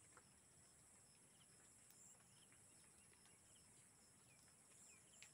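Near silence: faint outdoor ambience with a steady high hiss and a few faint, short chirps scattered through it.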